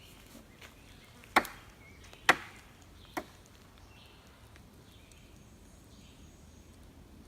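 Wood knocks on a tree trunk: three sharp knocks about a second apart, the third quieter, each with a short ring-out. This is a tree-knock signal sent out to call for an answering knock.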